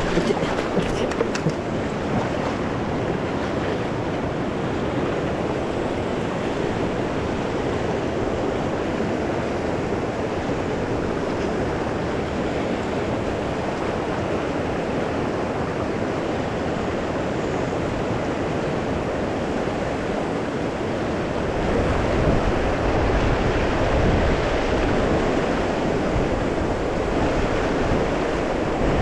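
Steady rush of a mountain river's current. A few light clicks come in the first second or so, and from about two-thirds of the way through a louder low rumble of wind on the microphone joins in.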